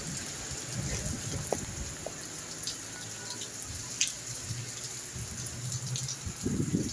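Rain falling on a roof: a steady hiss with many scattered drop ticks. A short low rumble comes near the end.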